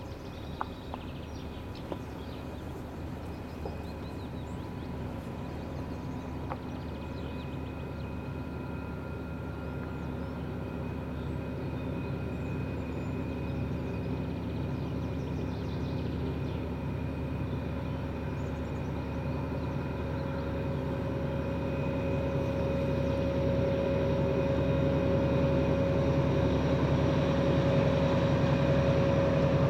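2TE10M diesel locomotive's 10D100 two-stroke opposed-piston diesel engines running under power. The steady low drone carries a whine on top, and it grows steadily louder as the locomotive approaches, the whine strengthening near the end.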